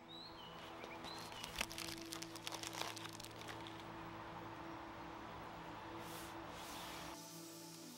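Tack cloth crinkling and crackling as it is handled, a dense patch of crackles about one to three seconds in. It is then wiped over a sanded walnut credenza top in a soft, steady rubbing hiss.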